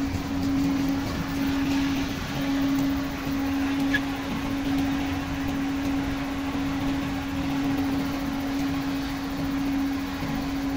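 Truck engine running steadily at idle, with a constant hum.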